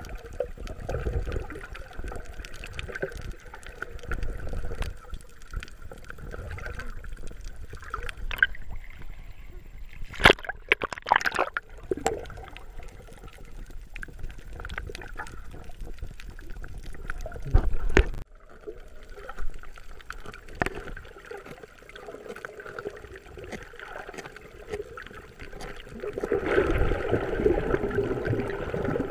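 Muffled water sloshing and gurgling around a camera held underwater, with a few sharp knocks about ten to twelve seconds in and again near eighteen seconds. Louder water noise near the end.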